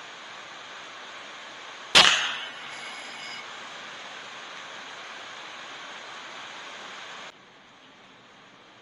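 A single sharp air rifle shot about two seconds in, followed by a brief metallic ring, over a steady hiss that drops suddenly later on.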